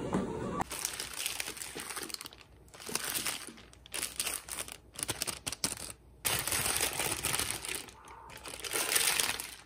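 Paper burger wrapper crinkling and rustling in bursts as it is unwrapped by hand.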